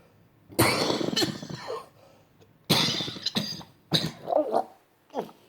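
A woman coughing hard in three long bouts, then a short cough near the end. It is the irritant cough she puts down to the leaf-blower dust and debris she breathed in and swallowed.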